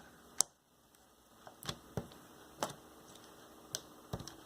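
Faint, scattered sharp clicks and pops, about six at uneven spacing, as sticky clear slime still full of air bubbles is handled and kneaded.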